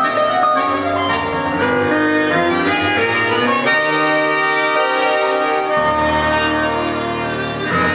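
Tango music played by bandoneón, piano and violin, with long held chords; a deep low note comes in about six seconds in.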